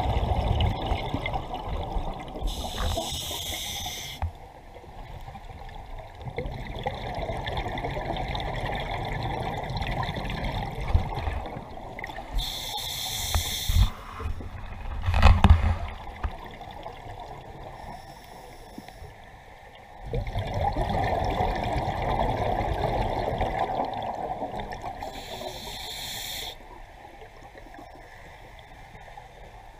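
A scuba diver breathing underwater through a regulator: long rushes of exhaled bubbles alternate with three short, hissing inhalations through the demand valve, roughly every ten to twelve seconds. A sharp knock stands out about fifteen seconds in.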